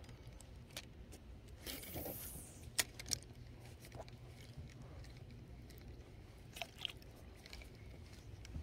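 Fishing rod and reel being cast and worked: a brief swish about two seconds in, two sharp clicks just after, then faint scattered ticks of reel handling over a low steady hum.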